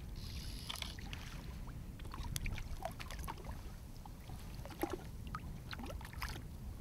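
Small splashes and water lapping at the side of a flats skiff as a hooked bonefish is brought alongside and grabbed by hand. Scattered light clicks and knocks sound over a steady low rumble.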